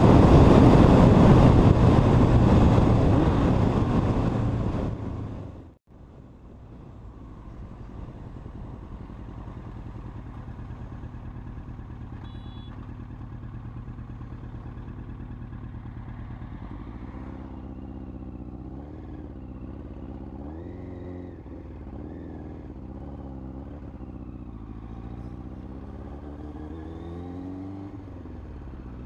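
A 2001 Yamaha R1's inline-four engine heard from the rider's seat. At first it is at speed under a loud rush of wind on the microphone, which fades out after about five seconds. Then it runs quietly at low speed, with the revs rising and falling again and again in the second half.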